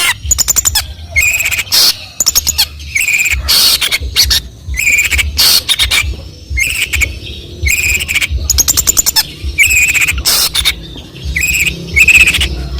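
Long-tailed shrike (cendet) singing loudly in rapid, harsh chattering phrases and fast click-like trills, with repeated short notes in between, a song made up largely of mimicked calls of other birds. A low hum runs underneath.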